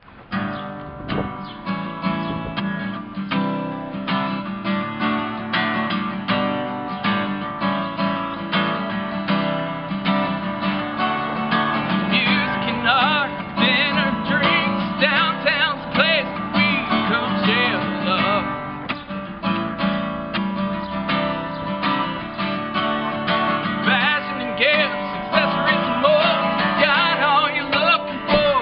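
Song played on a strummed acoustic guitar. A man's singing voice comes in about twelve seconds in.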